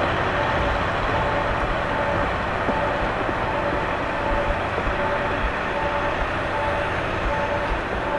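KiHa 183 series diesel express train running toward the listener with a steady engine and rolling noise. A faint tone repeats about once a second throughout.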